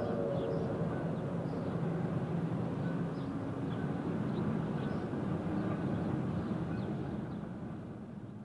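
Train rumbling steadily along the track as the tail of its whistle dies away, with faint high chirps above the rumble; the rumble fades out near the end.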